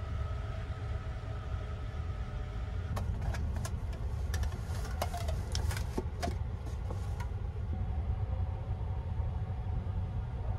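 Sleeper train running, heard from on board: a steady low rumble, with a run of sharp clicks and knocks between about three and seven seconds in.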